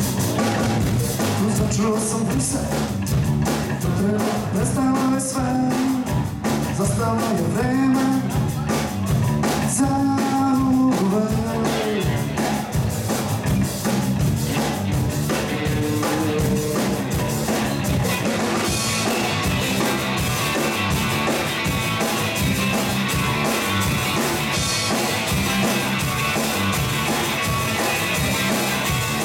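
Rock band playing live: drum kit, electric guitar and bass with a singing voice, the sound growing denser about two-thirds of the way through.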